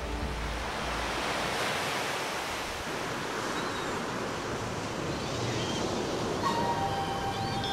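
Steady rushing water noise with no clear rhythm, the kind heard on underwater dive footage. A few steady tones come in near the end.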